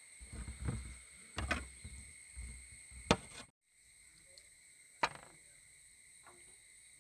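Raw chicken wing pieces being handled over an aluminium tray: soft low rustling and a few sharp clicks for the first three and a half seconds, then after a brief dropout only a single click. A steady high insect drone runs underneath.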